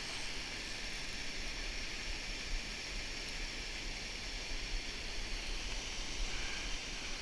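Steady rush of water pouring over a low concrete dam spillway, an even hiss without breaks.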